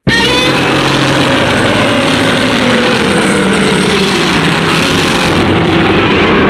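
Godzilla roar sound effect: one long, loud roar that starts abruptly out of silence and carries on without a break, its pitch slowly bending over a rough, grinding layer.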